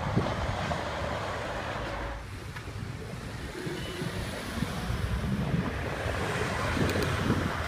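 Wind rushing over the microphone of a camera on a moving bicycle, with road rumble and city traffic underneath; a few light clicks near the end.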